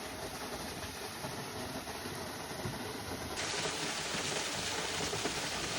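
Waterfall rushing as a steady roar of falling water, turning abruptly louder and brighter about three and a half seconds in.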